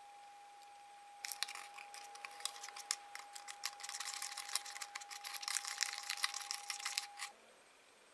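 A small plastic spoon stirring and scraping icing mix in a thin plastic tray compartment: a quick, busy run of small clicks and scrapes lasting about six seconds that stops abruptly. A faint steady high hum runs under it and stops at the same moment.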